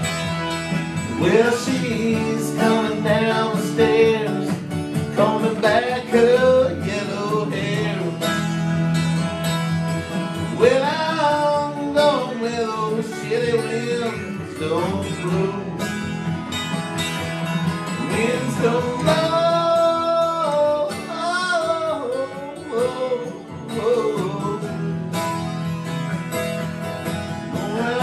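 Acoustic guitar strummed in a country-bluegrass style, with a man singing the melody over it.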